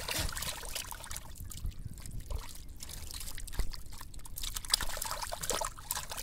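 Hands digging through wet mud and muddy water: irregular squelching, sloshing and wet smacks with trickling water.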